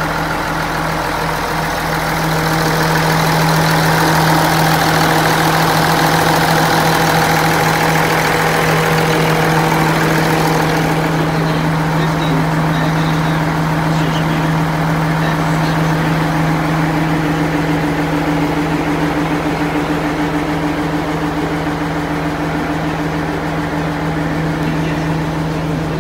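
Mack Econodyne diesel engine of a dump truck idling steadily, a constant low hum. About eleven seconds in the hiss drops away and a second, higher hum comes up.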